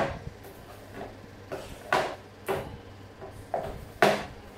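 Cup and bottles knocked and tapped on a tabletop while slime ingredients are handled and mixed: about six sharp knocks with lighter taps between, the loudest near the end.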